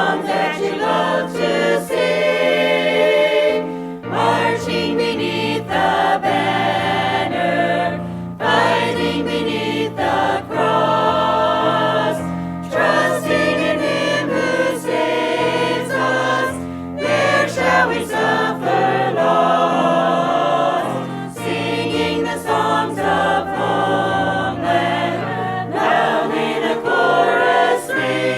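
A choir singing a hymn in parts, in phrases about four seconds long, over sustained low bass notes.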